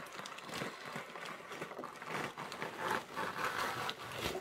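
A hand rummaging through loose-fill foam packing peanuts in a cardboard box: an irregular rustling and crackling of foam pieces rubbing on each other and on the cardboard.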